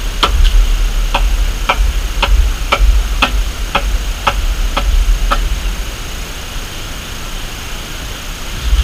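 Carpenter's hammer blows struck at an even pace of about two a second, some ten sharp strikes that stop about five seconds in, over a steady low rumble.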